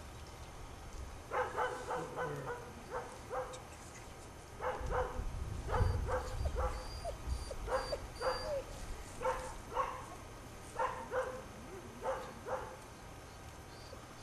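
A collie puppy barking in short, high yips, in quick clusters of several with short pauses between. A low rumble comes in partway through.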